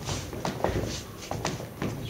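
Dance shoes stepping and scuffing on a wooden stage floor, with several sharp footfalls in quick succession.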